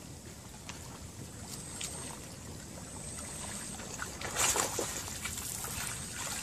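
A hooked fish splashing and thrashing at the water's surface while being played on a pole line, with the loudest splash about four and a half seconds in, over a steady outdoor hiss.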